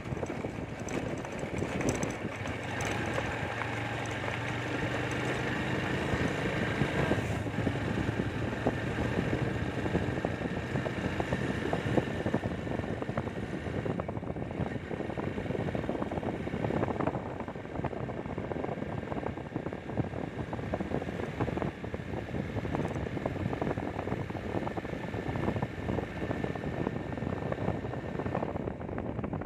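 Motorcycle running on the move, a steady engine hum under rushing wind and road rumble on the microphone. The engine's hum stands out most in roughly the first ten seconds.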